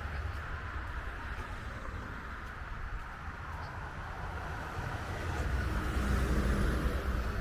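City street traffic: a steady hum of passing cars, with a low engine and tyre rumble that fades early and builds again in the last couple of seconds as a vehicle passes closer.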